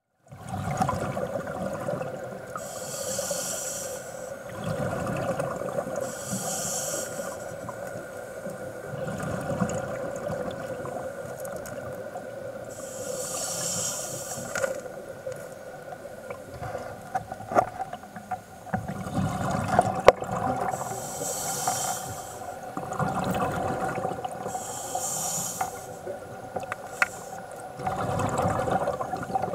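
Scuba diver breathing through a regulator underwater: hissing inhalations alternating with rumbling bursts of exhaled bubbles every few seconds, over a steady hum.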